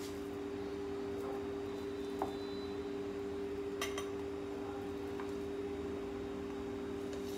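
A few light clinks of utensils against a bhujia (sev) maker as rice paste is loaded into it, over a steady low hum.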